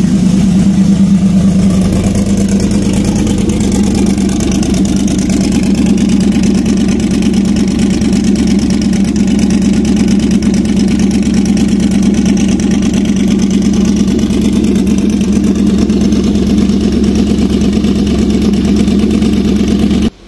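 Ford Gen 2 Coyote 5.0 V8 running steadily on a cold start, clean and even without the usual rough chugging, then shut off abruptly near the end.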